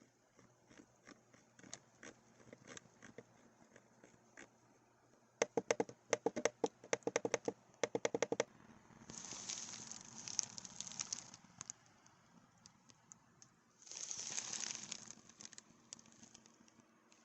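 Redragon UCAL K673 PRO mechanical keyboard being typed on: scattered single keystrokes, then a fast flurry of clacking keys about five seconds in. Two stretches of rapid, rattling key presses follow, one about nine seconds in lasting a few seconds and a shorter one near the end.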